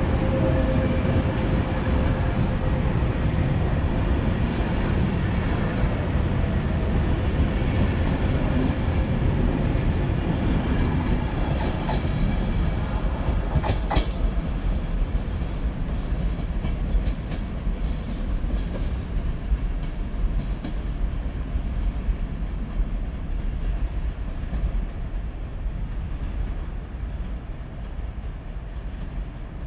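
PKP Intercity passenger coaches rolling past on departure, wheels clacking over rail joints, then the train's rumble slowly fading as it pulls away down the track.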